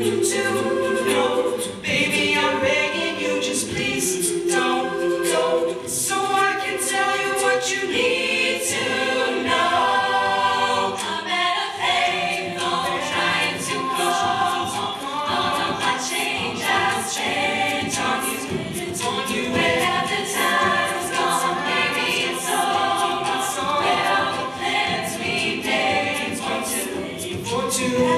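An a cappella choir of mixed voices singing in harmony, without instruments, over a steady beat of sharp clicks; the section is without clear lyrics.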